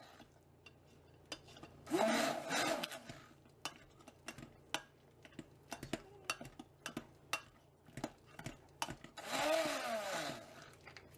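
Stick blender churning a thick liquid-soap paste in a glass jug, run in two short bursts, about two seconds in and again near the end. Between the bursts come light clicks and taps of the blender against the glass.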